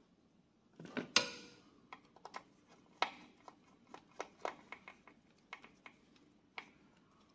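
Light clicks and taps of a replacement circuit board and its MOSFETs being fitted into a welding inverter's case, with a sharper ringing clink about a second in.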